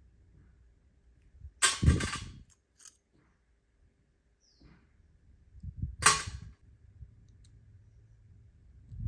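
Two loud, sharp clacks about four seconds apart as rusty steel parts of a coil tattoo machine are handled and pulled apart by hand.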